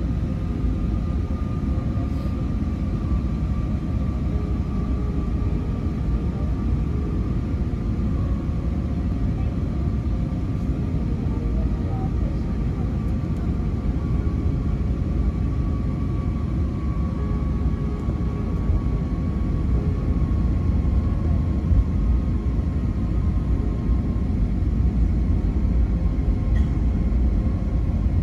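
Steady cabin noise inside an Airbus airliner in flight: the low rumble of the engines and rushing air, with a faint steady whine that drifts slightly lower in pitch. It grows a little louder near the end.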